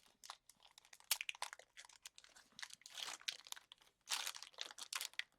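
Foil booster-pack wrapper being crinkled and torn open, a run of sharp crackles with longer rustling spurts about three and four seconds in.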